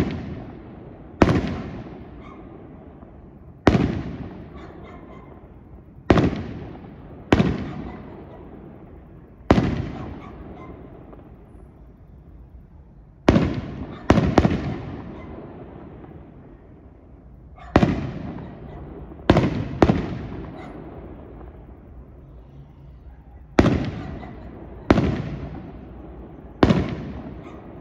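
Aerial fireworks going off one at a time: about thirteen sharp single bangs, one every one to four seconds, each followed by a long rolling echo.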